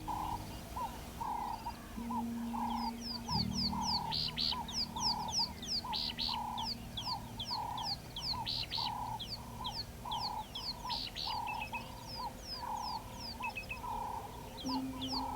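Several birds calling together: a steady run of short, low hoot-like notes about two a second, under quick falling chirps and whistles. A low steady drone sits underneath.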